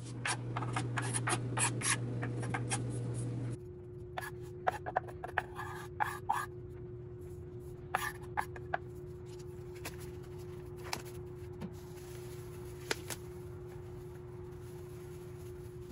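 Kitchen food-preparation handling sounds: many small clicks and rubbing over a steady hum for the first few seconds. After that come sparser sharp clicks and brief rubbing over a steady humming tone.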